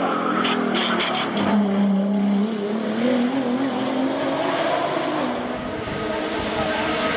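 Race car engine running hard at high revs during a hillclimb run, with a few sharp cracks about a second in.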